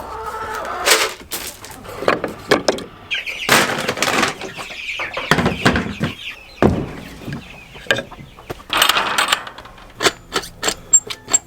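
Chickens clucking and squawking, mixed with sharp knocks and rustling.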